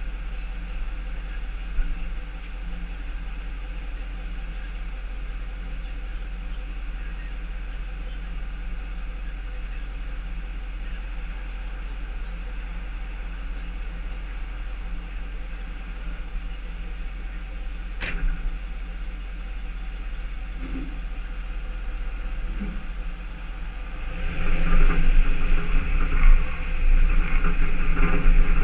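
Tow truck engine idling steadily, with one sharp click about two-thirds of the way through. Near the end the engine gets louder as the truck moves off and turns.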